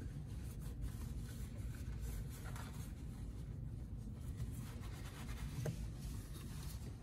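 Faint, irregular rubbing and scuffing of a gloved hand wiping excess motor oil off the underside of a vehicle's frame, over a steady low hum.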